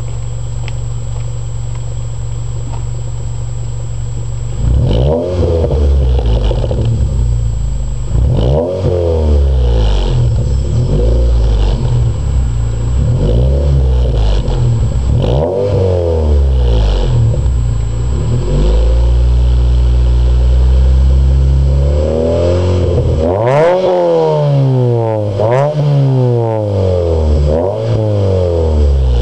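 2006 Scion tC's 2.4-litre four-cylinder engine, breathing through an aftermarket header, high-flow cat, Magnaflow resonator and axle-back exhaust. It idles steadily, then about five seconds in it is blipped again and again, each rev rising and falling away. Around two-thirds of the way through it is held at higher revs for a few seconds, then revved in quicker, sharper blips.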